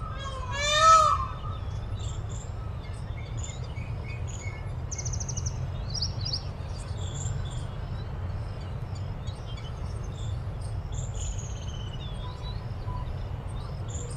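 A peacock gives one loud call right at the start, its pitch rising and then falling. Afterwards small birds chirp and twitter, with a rapid trill about five seconds in, over a steady low rumble.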